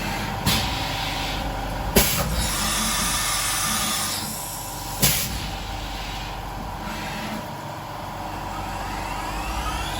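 SyilCNC X7 CNC milling machine running a machining cycle on aluminium parts: steady spindle and machine noise with a constant whine, broken by three sharp clicks, about half a second, two and five seconds in.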